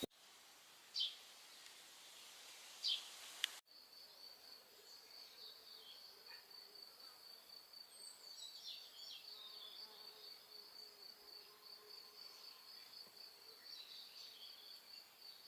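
Two short, high bird chirps, then an insect's steady, rapidly pulsing high trill, faint, with a few soft bird calls over it.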